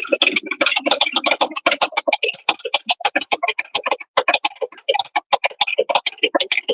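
Rapid, even ticking clatter from a pickup truck's A/C compressor running with the engine on. This is the abnormal noise under diagnosis, from a compressor that feels bound up and makes a strange noise when turned by hand.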